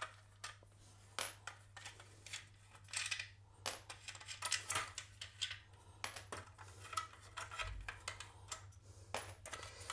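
Scattered clicks, taps and light clattering of small hard objects being handled off-camera while a plastic electrical back box is got ready for fitting, over a low steady hum.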